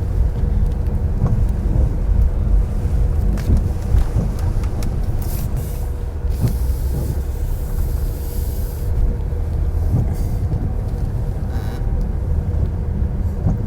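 Car driving, heard from inside the cabin: a steady low rumble of engine and road noise with a faint constant hum. A stretch of higher hiss from the tyres and road swells up briefly in the middle.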